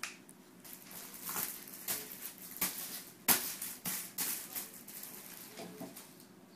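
Irregular rustling and soft clicks close to the microphone as a German Shepherd puppy is handled and cuddled, the sharpest click a little past three seconds in.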